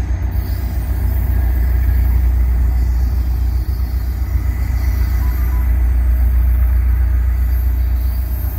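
Caltrain diesel locomotive giving a loud, steady, low rumble as the train moves along the platform.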